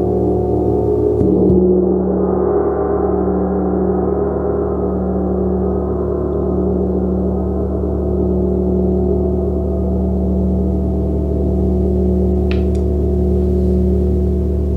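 Gong played in a continuous sound-bath style: many overlapping ringing tones sustained together, with a slow pulsing beat in the low hum. A new stroke about a second in brightens the tone, which then slowly settles.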